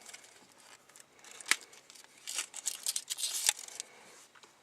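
Small plastic packets and wrappers being handled and torn open by hand: scattered crinkling, a tear and a few sharp clicks, busiest through the middle.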